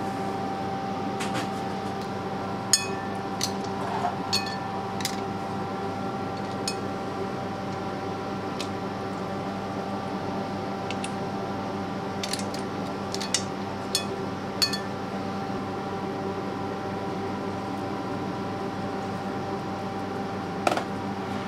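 Clam shells and metal tongs clinking against a frying pan and china plate as steamed clams are served, a dozen or so scattered short clinks. Under them runs a steady kitchen machine hum.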